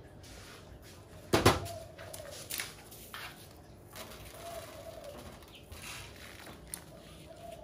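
Rice grains sprinkled by hand onto a glass sheet: one sharp knock about a second and a half in, then scattered light clicks and patters as grains land on the glass. A bird calls repeatedly in the background.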